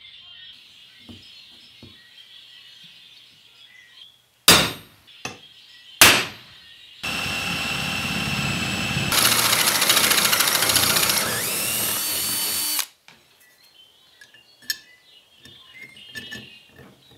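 Cordless drill boring through a flat steel bar, a steady run of about six seconds that grows louder in the middle and cuts off suddenly. Two sharp knocks come shortly before it starts.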